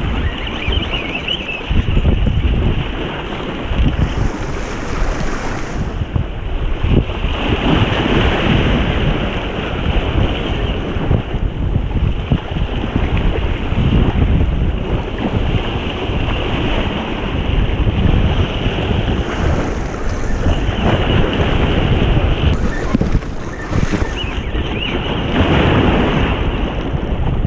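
Strong wind buffeting the microphone over breaking surf. In the first second comes the high-pitched whir of a spinning reel's drag as a hooked striped bass pulls out line.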